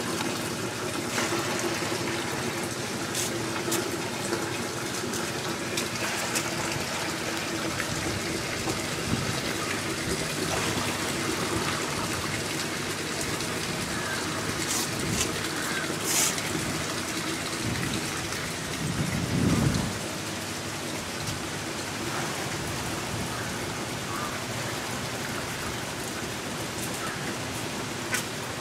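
Steady splashing rush of running or poured liquid, with a brief louder low swell about two-thirds of the way through.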